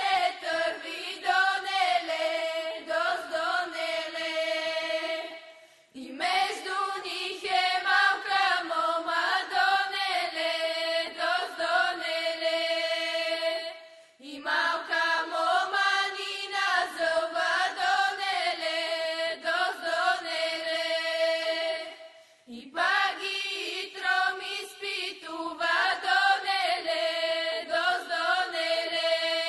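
A group of women singing a Bulgarian folk song in long phrases with brief pauses between them, a low held note sustained under a moving upper line.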